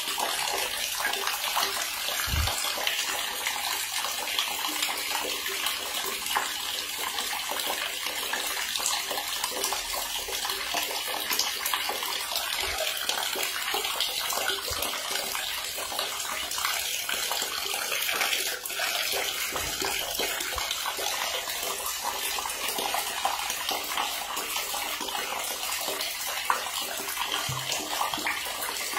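Water running steadily into a bathtub, with a few faint low thuds scattered through it.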